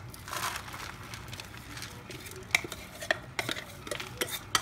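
Ground date-and-nut mixture being scraped and knocked out of a stainless-steel mixer-grinder jar into a plastic bowl: a short scraping rustle near the start, then a series of sharp metal clicks and taps.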